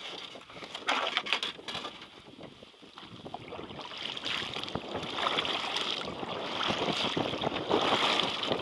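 Water splashing and lapping irregularly around a small fishing boat, quieter early on and growing louder through the second half.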